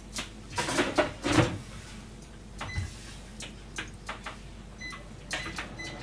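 Knocks and clatter of kitchen ware and a grill being loaded, loudest in the first second and a half, then a few short electronic beeps from a stove's fish-grill controls as the grill is set for five minutes.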